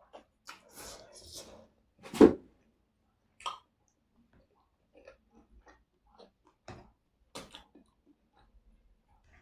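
Close-up eating sounds: a person chewing noodles, with short scattered mouth sounds and one loud sudden sound about two seconds in.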